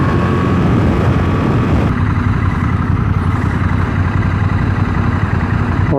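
Honda NT1100's 1100 cc parallel-twin engine running at road speed with heavy wind rush. About two seconds in it cuts abruptly to motorcycle engines idling at a standstill, a steady low rumble.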